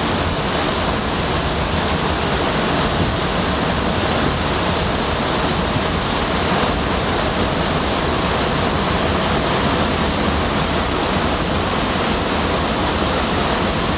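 Osprey Falls, a tall waterfall on the Gardner River, pouring down a cliff face: a loud, steady rush of falling water that does not change.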